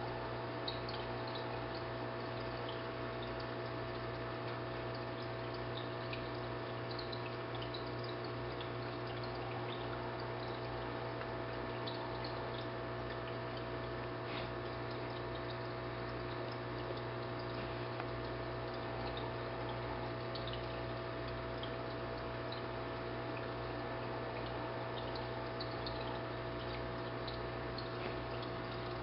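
Aquarium water pump running: a steady motor hum under continuous water trickling, with small drips and bubble plinks scattered throughout.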